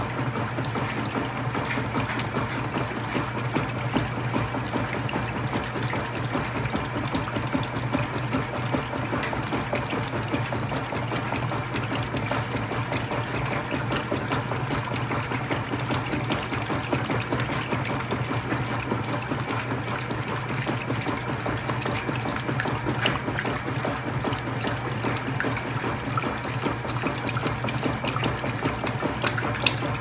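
Mid-2000s GE WCSR2090D2WW top-load washer agitating a large load: water sloshing and splashing around the clothes over a steady low motor hum.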